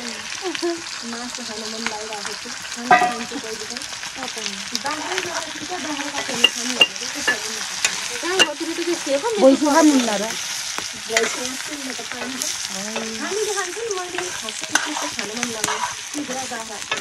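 Chicken pieces frying and sizzling in a black pan over a wood fire, stirred with a metal ladle that clicks and scrapes against the pan many times.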